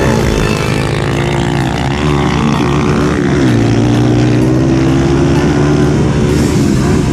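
Honda CRF150L's single-cylinder four-stroke engine running under way on a dirt track. The engine note drops a little about halfway through, then holds steady.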